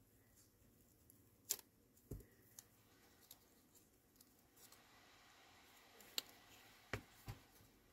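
Paper stickers being handled, peeled and pressed onto a planner page: a few soft, sharp clicks and taps, with a faint paper rustle a little past halfway through.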